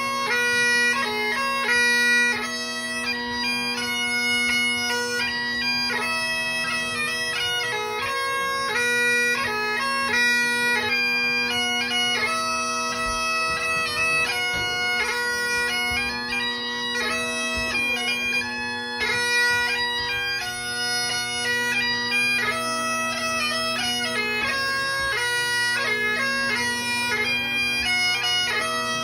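Great Highland bagpipe played solo: a quick dance tune of fast-changing melody notes over the steady drones.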